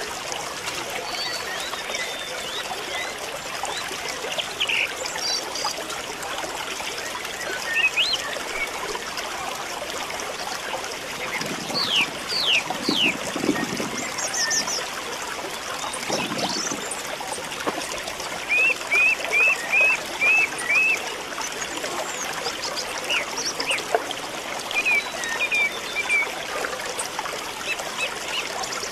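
Steady trickle of running water, with birds chirping over it; the loudest is a quick run of about six identical short chirps two-thirds of the way in.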